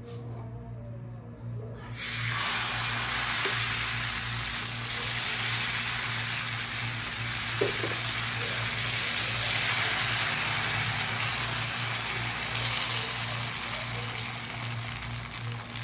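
Rava dosa batter sizzling on a hot dosa griddle, starting suddenly about two seconds in as the batter hits the pan, then sizzling steadily.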